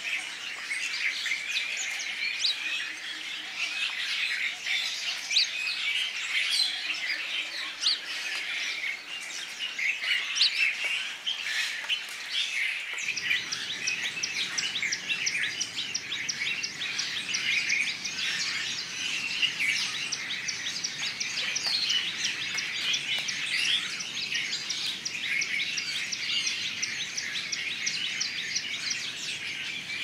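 Many small songbirds chirping and singing over one another in a dense, continuous chorus. About 13 seconds in, the sound changes: a low background hum comes in under the birds, and a fast, repeated high chirping stands out.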